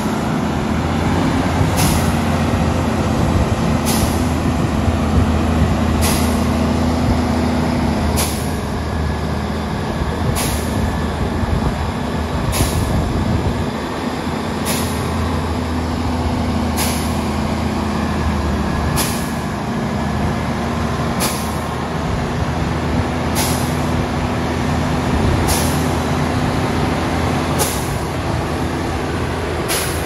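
Diesel power pack of a self-propelled modular transporter running steadily with a low drone, the pitch dipping briefly a couple of times, and a short hiss repeating about every two seconds.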